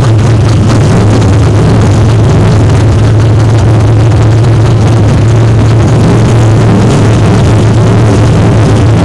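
Street stock race car engine idling, loud and steady, with an even low hum that never changes pitch.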